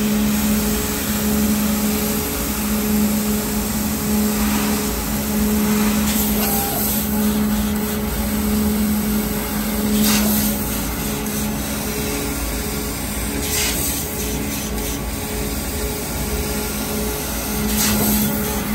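Amada ACIES 2515 punch/laser combination machine running. It makes a steady mechanical hum with a low tone that drops out briefly now and then, plus several short hisses.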